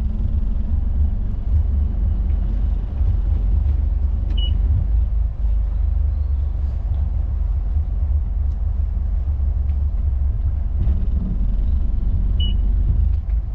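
Motor boat engines running at low idle as the boat creeps through a marina, a steady low rumble. Two short high beeps sound, about eight seconds apart.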